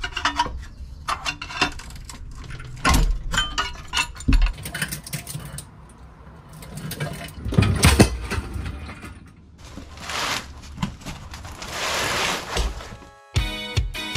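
Hand tools working under a car during transmission removal: ratchet and wrench clicks with irregular metal clanks and knocks, then a steady hiss for a couple of seconds. Music starts just before the end.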